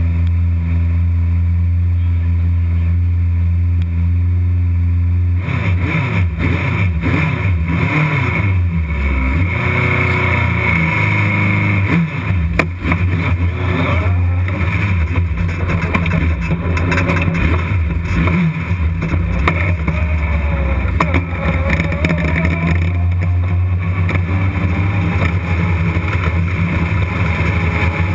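Race car engine heard from inside the car: idling steadily, then from about five seconds in revving and accelerating hard, its pitch rising and falling as the car is driven at racing speed.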